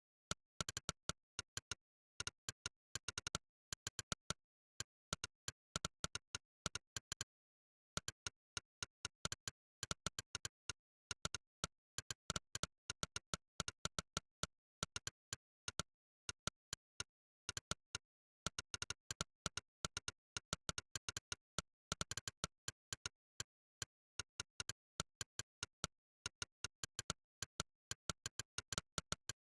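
Monkeytype's synthetic 'click' typing sound: a sharp click for each keystroke, fast and irregular in runs of typing, broken by short pauses of dead silence.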